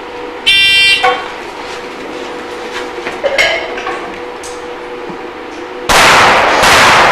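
A half-second electronic beep sounds about half a second in, followed by a few short metallic clanks. From about six seconds in, rapid pistol fire rings out, loud and closely spaced.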